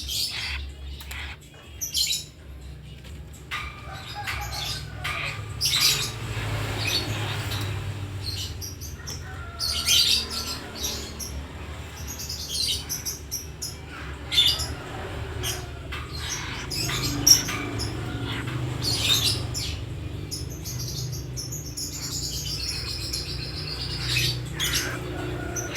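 A captive nightjar being fed, giving short chirps and squawks among flapping and scuffling sounds, with a longer wavering high call near the end.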